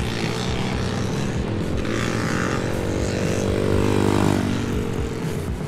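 A small dirt bike engine passes close by. It grows louder, is loudest about four seconds in, and then drops in pitch as it moves away.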